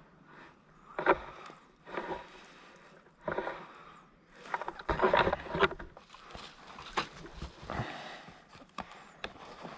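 Footsteps crunching and rustling through dry vegetation, in irregular bursts about a second apart, louder and busier around the middle.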